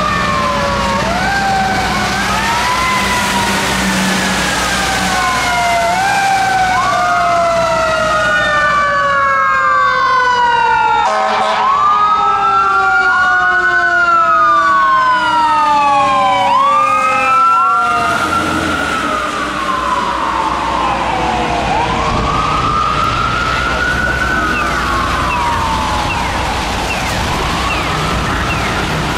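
The siren of a 2021 Spartan Gladiator/Smeal fire engine wailing on a call, its rising and falling sweeps overlapping. A second, slower tone falls steadily in pitch for about ten seconds through the middle. Tyre hiss on the wet road comes in as the truck passes.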